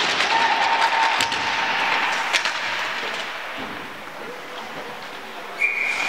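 Crowd noise in an ice hockey arena: spectators and players clapping and cheering, dying down gradually, with a couple of sharp knocks.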